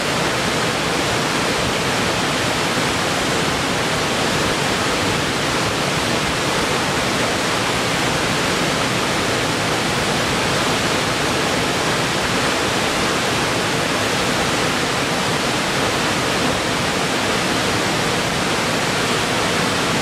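Waterfall cascading down several rock ledges into a pool: a steady, unbroken rush of falling water.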